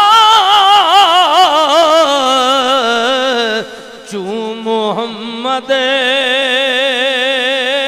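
A man singing a devotional verse in long, drawn-out melismatic phrases with wide vibrato, through a microphone. About halfway he breaks off briefly, then holds a lower note.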